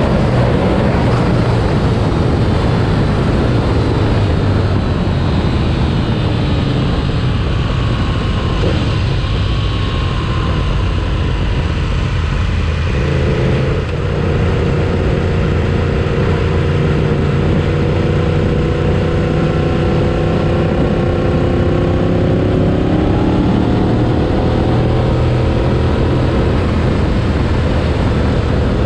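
Sport motorcycle engine running at road speed under heavy wind rush, its pitch falling and rising with the throttle. About halfway through there is a brief dip, as at a gear change, and then the engine note climbs steadily.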